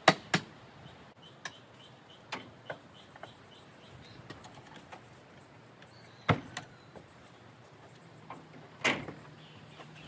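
Scattered knocks and clicks, as of things being handled, set down or bumped. The loudest come right at the start, about six seconds in and near the end.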